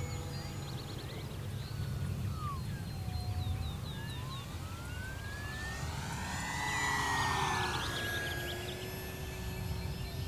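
Electric motor and propeller of a 1500mm foam RC Cessna 182 in flight: a whine that dips in pitch a few seconds in, then climbs steadily as the plane works the throttle or passes, with a rush of propeller noise about seven seconds in.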